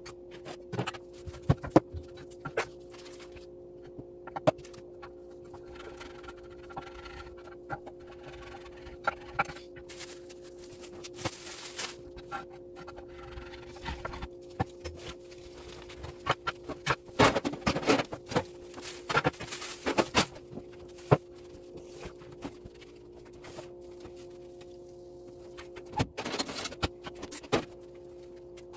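Kitchen prep sounds: scattered knocks, taps and clatters of utensils on a wooden cutting board and a tray, with dense runs of quick taps about two-thirds of the way through and again near the end, over a steady low hum.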